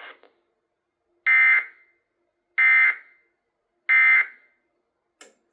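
Three short, identical Emergency Alert System end-of-message data bursts from a TFT EAS decoder relay, evenly spaced about a second and a half apart. They mark the end of the relayed warning. A brief click follows near the end.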